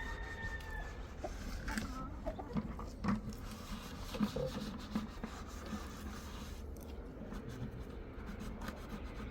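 Backyard hens clucking softly in short, low notes at irregular intervals, over a steady low rumble.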